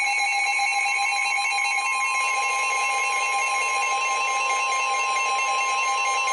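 Emergency alert tones from weather alert receivers: several steady electronic alarm tones at different pitches sounding together without a break.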